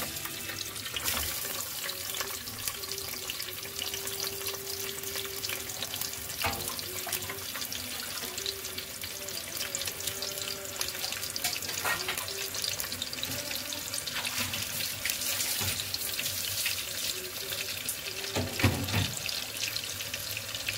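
Sliced onions sizzling in hot cooking oil in an aluminium pressure cooker, starting about a second in once they are tipped in and going on as a steady crackling hiss. Near the end there is one brief knock.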